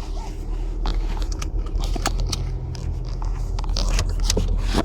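Volkswagen Passat 2.0-litre turbo diesel engine running with a steady low hum, with scattered light clicks at irregular moments.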